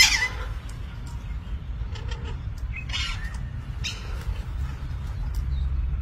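Alexandrine parakeets giving harsh, screechy calls: a loud one at the start, a few softer ones, then two more strong calls about three and four seconds in. A steady low rumble runs underneath.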